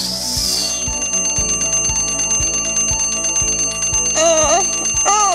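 Alarm clock bell ringing rapidly, starting about a second in, over background music with a steady beat. Near the end, a drawn-out wavering voice-like sound.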